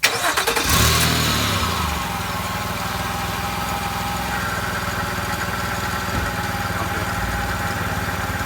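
Nissan Pathfinder's engine starting up, revving briefly about a second in, then settling into a steady idle.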